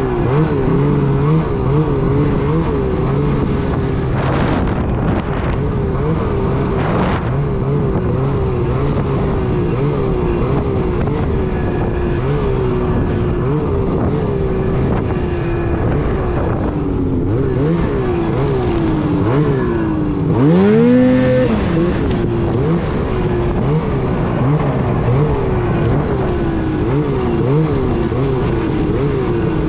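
Snowmobile engine being ridden through deep snow, its pitch rising and falling over and over as the throttle is worked, with one hard rev and drop about two-thirds through.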